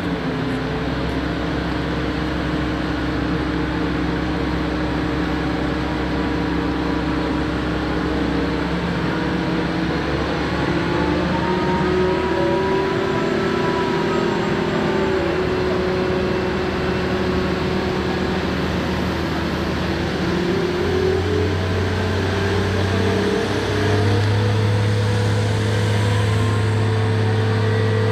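Heavy engine of a Terex truck crane running steadily, with a higher tone that rises and then falls in pitch around the middle. About three-quarters through, the engine speed steps up and holds higher and louder.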